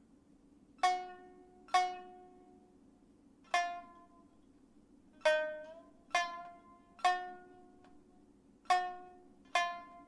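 Background music: a plucked string instrument playing slow single notes, about eight in all, each ringing out and fading before the next.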